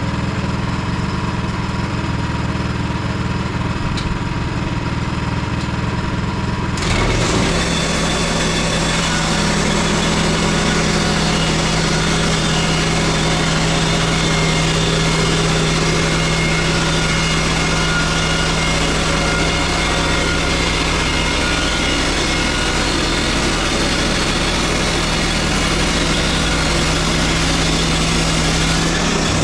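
Gas engine of a Woodland Mills HM122 portable bandsaw mill running steadily. About seven seconds in the sound abruptly gets louder and fuller, with a steady hum, and runs on that way, as the mill saws boards.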